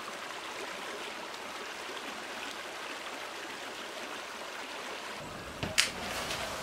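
Steady rush of a flowing stream, with a sharp click near the end.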